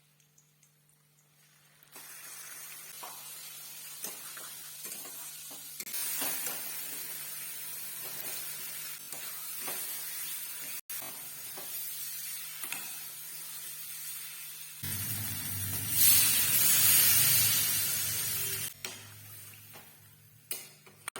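Egg curry sizzling in a pan, with scraping and clicking from a spatula as it is stirred. The sizzle starts after a couple of seconds of quiet and swells loudest about three-quarters of the way through, with a low rumble underneath, before dying down.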